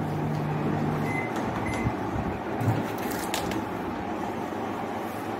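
Samsung microwave oven's steady running hum stops about a second in, followed by two short high-pitched beeps from the oven and then a few sharp clicks.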